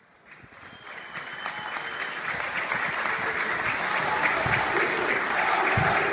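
A large crowd of football supporters clapping, fading in from silence over the first couple of seconds. Near the end, massed voices of a chant start to come in.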